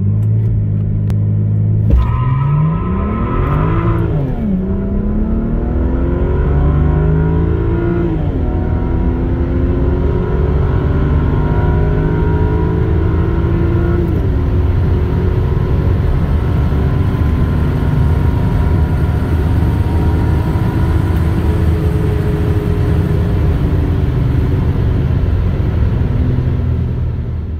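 2007 BMW 335i's twin-turbo inline-six, with upgraded turbos, piping and intercooler, held at low revs and then launched at full throttle about two seconds in. It climbs in pitch through the gears, the automatic making three upshifts, the last about halfway through. The tyres spin through first gear.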